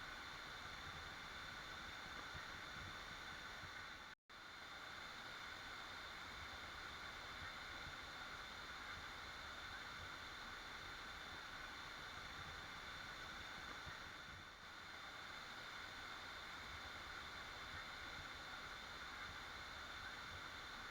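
Waterfall rushing steadily, faint and even, cutting out for an instant about four seconds in.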